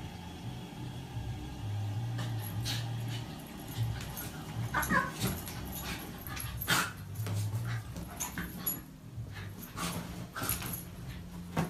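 A dog and a cat play-fighting on a bed: scuffling and light thumps, with the dog giving a few short whines, over a steady low hum.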